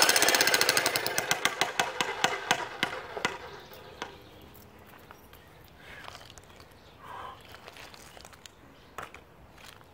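Electric jackhammer chiseling a concrete footing: rapid hammering for about the first second, then spaced blows that die away over the next few seconds. After that come faint knocks and scrapes of broken concrete being handled.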